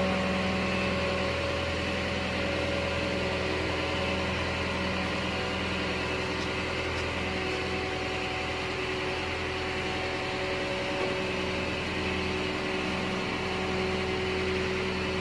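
Diesel engine of a tracked Claas Crop Tiger 30 combine harvester running steadily as the machine crawls up steel ramps onto a trailer.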